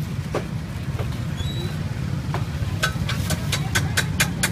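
Steady low rumble of street traffic. From a little before halfway, a run of quick light clicks comes at about four or five a second.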